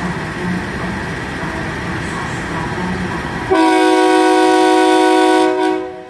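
Diesel trains running at a station platform, then about three and a half seconds in a loud train air horn sounds one long blast of about two seconds, dying away near the end.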